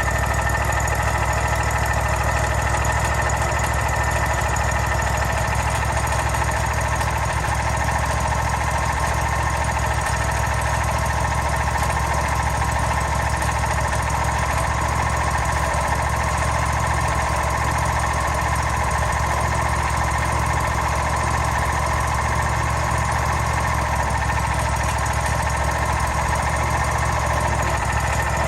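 Portable sawmill's engine running steadily at constant speed.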